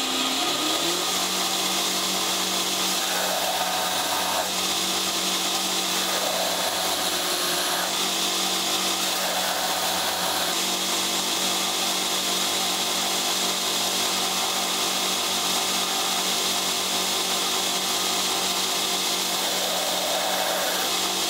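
Belt grinder motor spinning up to speed with a rising hum about a second in, then running steadily, with several short grinding passes as knife handle scales of Micarta and G10 are pressed against the sanding belt.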